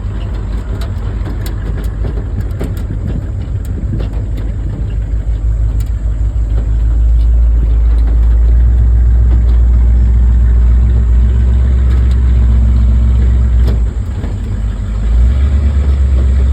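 A vehicle driving, with a steady low engine and road rumble and scattered knocks and rattles in the first half. The rumble grows louder about halfway through, drops briefly, then comes back near the end.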